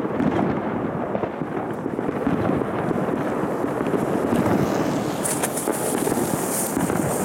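Steady crackling din of fireworks going off all around. About five seconds in, a small firework cake close by starts firing with a burst of sharp crackles and hiss.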